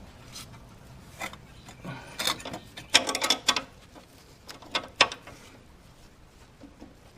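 Wrench tightening the nut on a sway bar link while an Allen key holds the stud: short, irregular metallic clicks and clinks, clustered about two to three and a half seconds in and again about five seconds in.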